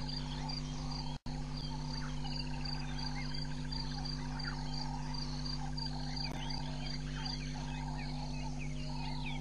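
Bush ambience: an insect chirping high and steadily about twice a second, over a frog chorus and scattered bird chirps, with a steady low electrical hum beneath. The sound drops out for an instant about a second in.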